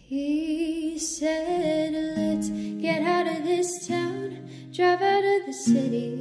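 Background music: a woman singing a slow melody with vibrato over acoustic string accompaniment.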